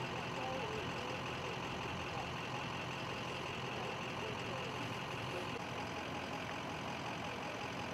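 A vehicle engine idling steadily, with a low hum that does not change.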